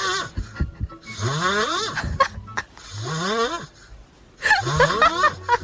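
An animal making the same breathy, rising-pitched sound over and over, about four times, each lasting close to a second.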